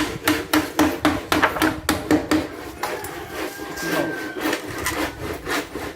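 Rapid sharp knocks on wood, about four a second, then slower and irregular, with some rubbing.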